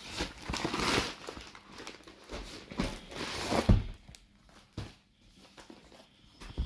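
Cardboard keyboard box being handled: two spells of rustling and scraping, with a sharp thunk a little before four seconds in, then a few light taps.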